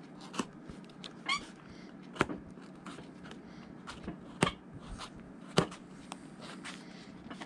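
Knife blade cutting and popping the old welt stitches on a leather cowboy boot: several sharp snaps a second or two apart, with fainter ticks between and a short rising squeak about a second in.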